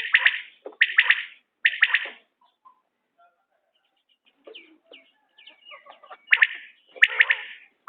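Common quail calling its short three-note song, repeated about once a second. After a break of about two seconds with only faint short chirps, the three-note calls start again near the end.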